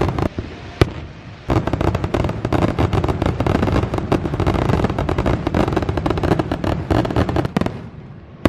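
Fireworks going off: a single bang about a second in, then a dense run of rapid crackling pops that dies down near the end.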